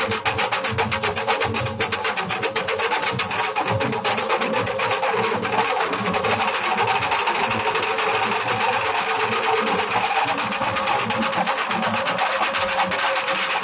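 Nashik dhol ensemble playing: many large barrel dhols beaten with sticks in a fast, unbroken stream of strokes.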